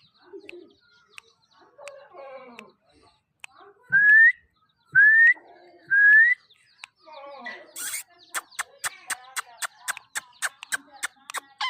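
A parrot whistling three short rising notes about a second apart, with soft chatter around them, followed by a quick run of sharp clicks.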